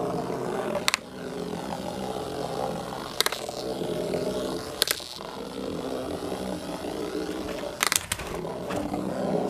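Battery-powered vibrating toy bug buzzing steadily as it skitters on its silicone legs across the floor of a plastic storage case. Sharp clicks, about five of them, as it knocks against the case's plastic walls.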